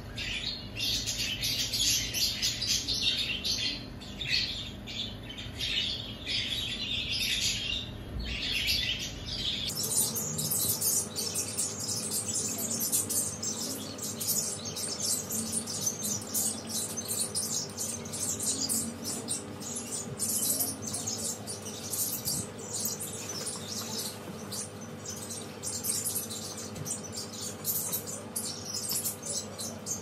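Pet birds chirping and twittering without pause, many quick high calls overlapping. About ten seconds in the sound changes abruptly: the chirps become sharper and higher, with a faint steady hum beneath them.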